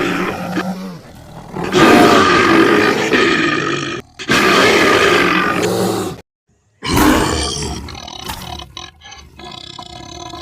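Bear-style roars and growls voiced by a person into an empty tin foil roll tube. There are about four long roars with short breaks between them, and the last one trails off quieter.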